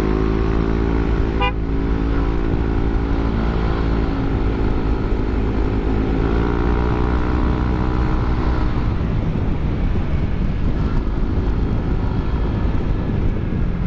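Yamaha NMAX 155 scooter's single-cylinder four-stroke engine running through a ROB1 Racing aftermarket exhaust while riding at a steady speed. The pitch rises a little about six seconds in. The engine note then fades after about nine seconds, leaving a steady rushing noise. There is a short click about a second and a half in.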